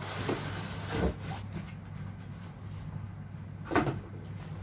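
Cardboard packaging being handled during an unboxing: rustling and rubbing, with two sharp knocks, one about a second in and one near the end. A steady low hum runs underneath.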